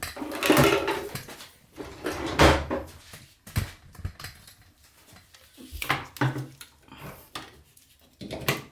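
Scattered knocks, clicks and rustles of objects being handled, in irregular bursts.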